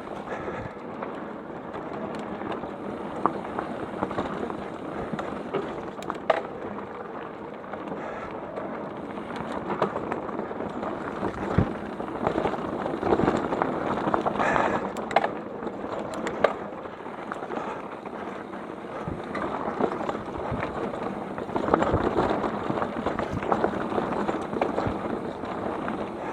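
Mountain bike tyres rolling over a rough dirt trail, with the rattle and knocks of the bike going over rocks and roots; the noise swells and eases as the ground gets rougher.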